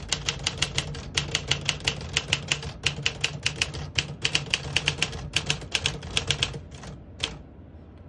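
1957 Tower President portable manual typewriter being typed on: a quick, steady run of typebar strikes, several a second. The typing stops about six and a half seconds in, with one more keystroke shortly after.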